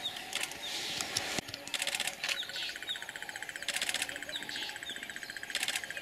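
Wild birds calling in the bush: a short, high, falling chirp repeated about twice a second. From about two seconds in a fast, even, pulsing trill joins it, and short bursts of rapid clicking come every two seconds or so.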